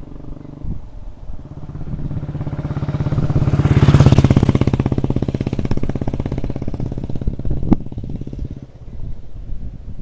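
2008 Royal Enfield Bullet 350's cast-iron single-cylinder four-stroke engine running at steady speed as the motorcycle rides past, with an even beat of exhaust pulses. It grows louder, is loudest about four seconds in, then fades as the bike rides away. A single sharp click comes near the end.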